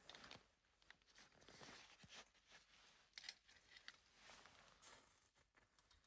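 Near silence with faint rustling and a few light scattered clicks.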